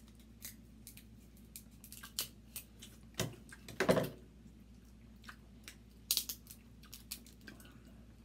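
Crab-leg shells cracking and snapping as they are broken open and picked by hand, in scattered sharp clicks, with a louder crunch about four seconds in, mixed with chewing.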